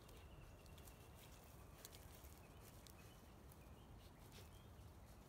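Near silence, with faint scattered ticks and rustles of dry grass as puppies walk and sniff through it.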